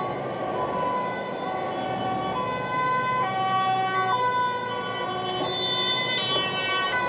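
Two-tone sirens of emergency vehicles, a fire engine among them, stepping back and forth between a high and a low note. More than one siren sounds out of step with another, over the steady road noise of a truck driving on the motorway.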